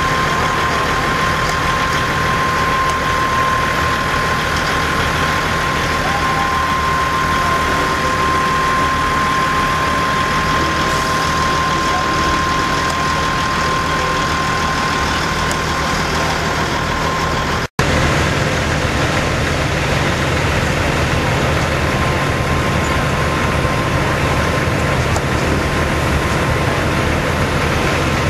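Semi-truck diesel engines idling steadily, with a steady high whine over them that stops at a brief dropout about two-thirds of the way through.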